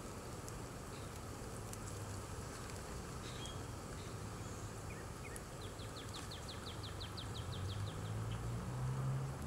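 Wood-fired rocket stove burning with a steady low rumble that swells slightly near the end. About six seconds in, a bird gives a short rapid trill of about ten notes a second.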